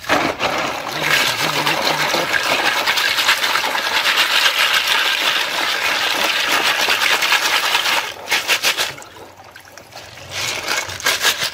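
Snail shells clattering against each other and the plastic mesh of a basket as the snails are washed, swished and shaken through a tub of water, with water sloshing. The clatter eases off about eight seconds in and picks up again near the end.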